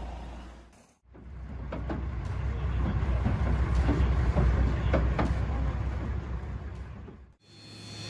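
A heavy vehicle rumbling low, with several sharp knocks or clanks over it, fading in about a second in and away near the end.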